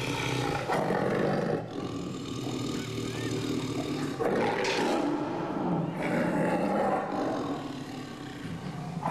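Siberian tiger growling and snarling over its food, a string of rough growls that swell and fade in several bursts.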